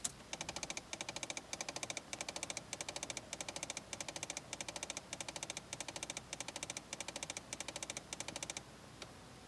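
Rapid mechanical clicking from a 2008 Ford Fiesta's heater, coming in short runs of clicks about every half second and stopping suddenly near the end. It goes with a heater that won't change from hot to cold or cold to hot.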